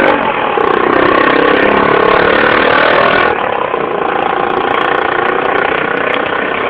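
A motor vehicle's engine running, its pitch slowly rising and falling, with a change in its sound a little over three seconds in.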